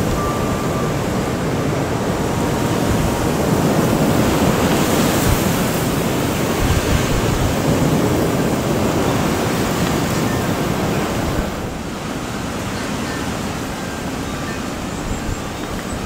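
Strong wind gusting through bamboo and garden trees, with wind rumbling on the microphone. The gust eases about three-quarters of the way through.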